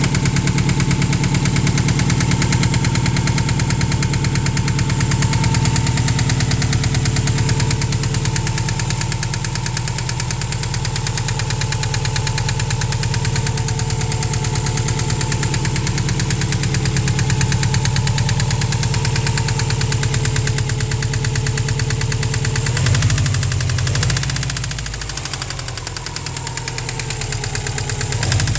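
2003 Subaru WRX's EJ20G turbocharged flat-four running with a steady, rapid knock from a spun rod bearing. The revs rise briefly about 23 seconds in, then settle.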